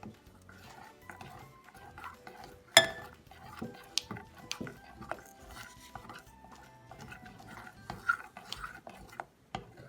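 A spoon stirring and scraping in a bowl of thickening slime, with irregular clinks and knocks, the loudest about three seconds in.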